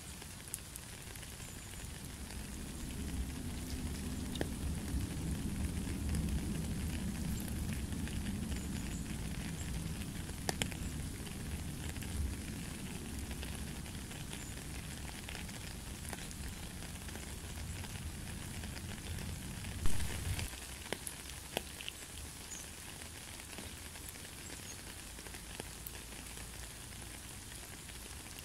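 Rain falling on a puddle and wet gravel: a steady hiss of patter with scattered sharper drop hits. A low rumble runs underneath for most of the first two-thirds and stops just after a single loud thump about twenty seconds in.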